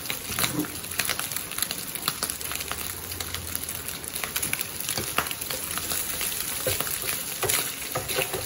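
Bacon sizzling in a frying pan, a steady hiss full of small crackling pops as the fat renders.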